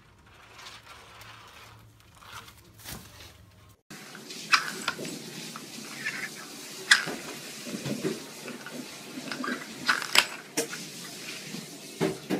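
Small plastic lids clicking and clattering on a wooden floor as a kitten paws at them: a run of sharp taps, irregular and several seconds long, with lighter scuffling between. Before it, about the first four seconds are only faint, quiet sound.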